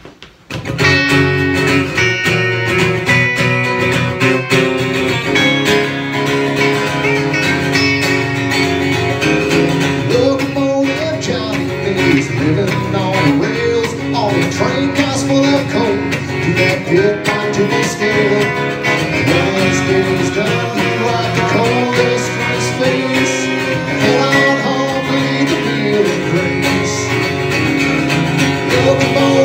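Live country-folk band starting a song: electric and acoustic guitars come in together about half a second in, and singing joins about ten seconds in.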